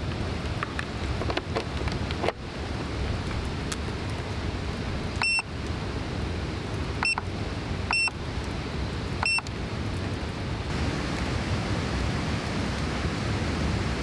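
AUKEY PowerStudio portable power station beeping four times, short high beeps a second or two apart, as its buttons are pressed to switch on its outputs and built-in light. A few light clicks come before the beeps, over a steady hiss.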